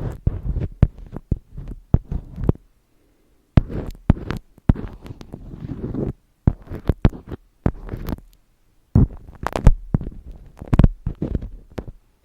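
Close-miked ASMR handling sounds: irregular bursts of rubbing and sharp taps, heavy in the low end, with short silent gaps between them.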